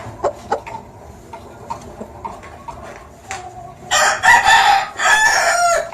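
Aseel rooster crowing: one loud crow starting about four seconds in and lasting nearly two seconds, with a short break in the middle. Scattered short clucks and clicks come before it.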